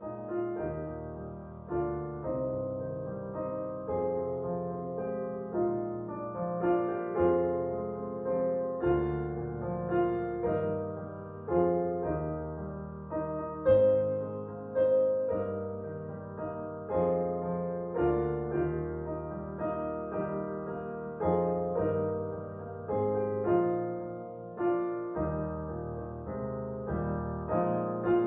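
Solo piano playing a slow piece, a new chord struck about every second or so, each one fading before the next.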